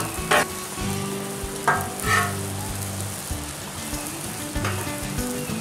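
Grilled cheese sandwiches sizzling on a hot flat-top griddle. A metal spatula scrapes and taps the steel surface a few times as it slides under the sandwiches and lifts them.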